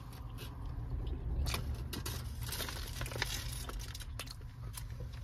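Scattered crinkling and light clicks as a food wrapper and the phone are handled, over a low steady rumble inside a car.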